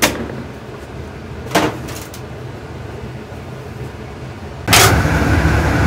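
Light knocks from handling a metal sheet tray and dough on a marble counter: one sharp knock at the start and another about a second and a half in, over a low hum. Near the end a louder, steady room hum cuts in suddenly.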